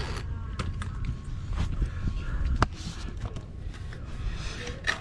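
Scattered light clicks and knocks of tools and parts being handled after the impact tool stops, with one sharper click about two and a half seconds in, over a low steady rumble.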